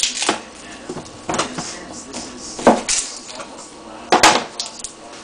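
Chef's knife slicing through a cucumber and knocking down onto a plastic cutting board, several irregular chops a second or more apart, the loudest about four seconds in.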